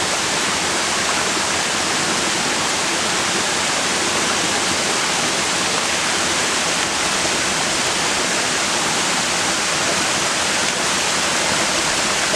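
Surathali Waterfall, a roughly 60 m fall in three tiers down rocky cliffs, giving a steady, unbroken rush of falling water.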